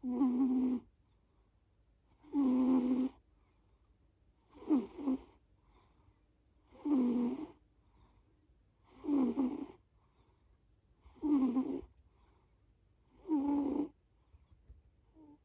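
A sleeping pet snoring: seven short snores in an even rhythm, about one every two seconds, with quiet breathing between them.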